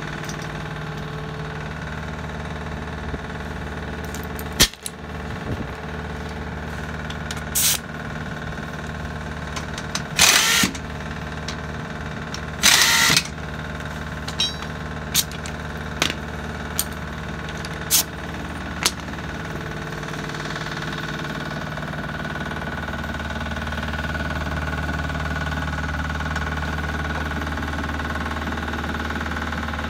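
A truck engine idling steadily, with short bursts from a pneumatic impact wrench working the wheel's lug nuts: two longer bursts about ten and thirteen seconds in, then a quick run of short hits. The low engine hum grows louder near the end.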